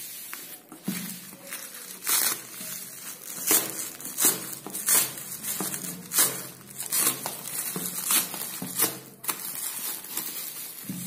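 Clear plastic wrapping being crinkled, pulled and torn off a cardboard box by hand: irregular rustling with many sharp, loud crackles.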